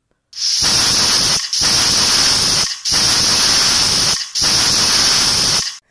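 Aluminium pressure cooker whistling: steam hisses loudly out past the weight valve in four blasts, one straight after another with only brief breaks between them. The whistles are the sign that the cooker is at full pressure, and they are counted to time the cooking.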